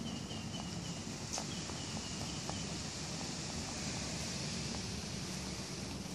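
Rabbits nibbling a pellet and dried-vegetable mix, with scattered light crunching clicks, over a steady outdoor hiss and low rumble. A faint chirp repeats through the first two and a half seconds.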